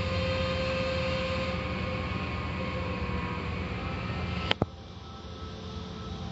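Automatic car wash heard from inside the car: water spraying over the windshield and body with the wash machinery running, a low hum under it and a thin steady whine that fades out about halfway. Two sharp clicks come about four and a half seconds in, after which the spray sound drops and goes quieter.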